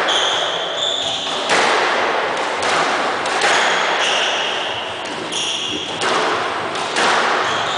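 Squash rally: the ball cracks off rackets and walls every second or two, each hit echoing around the court, with shoes squeaking on the hardwood floor between the hits.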